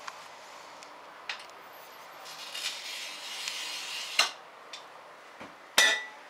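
A glass cutter scratches along a sheet of glass for about two seconds, scoring it. A sharp click follows, then near the end a loud crack with a brief ring as a narrow strip of glass is snapped off along the score.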